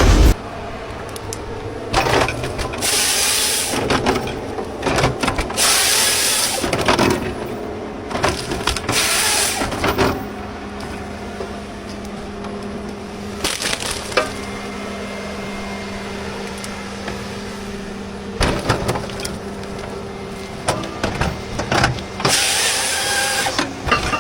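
A chainsaw engine running at a steady pitch, broken again and again by short, loud bursts of cracking and crashing wood.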